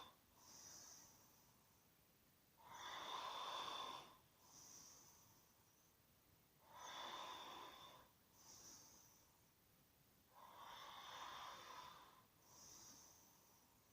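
A sleeping person snoring in an even rhythm. A snore comes about every four seconds, three times, and each is followed by a shorter, softer, hissing breath.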